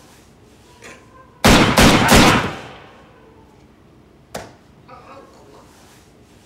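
Three gunshots fired in quick succession, about a third of a second apart, loud with a short ringing tail. About two seconds later comes a single, much quieter sharp crack.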